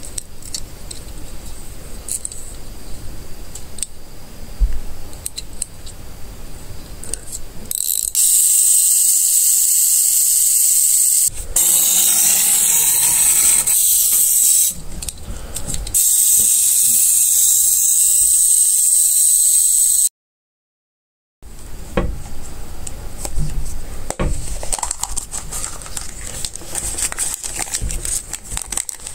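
Clockwork wind-up motor of a Capsule Plarail toy engine running, a loud, steady, high-pitched whir of small gears that lasts about twelve seconds with two short breaks. Before and after it come small clicks and rattles of the plastic toys being handled.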